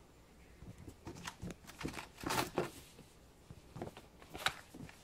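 Two kittens' paws scampering and scuffling on a hardwood floor as they play-fight: scattered light taps and scrapes, busiest a little after two seconds in, with one sharper tap near the end.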